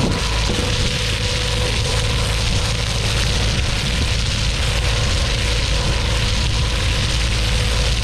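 Hydroseeder spraying a jet of slurry from its hose nozzle: a steady rushing hiss over a constant low engine and pump drone, with a faint steady whine.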